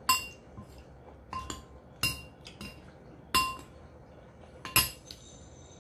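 Metal spoon clinking against a bowl of soup about half a dozen times, each clink short and ringing, as the soup is scooped up.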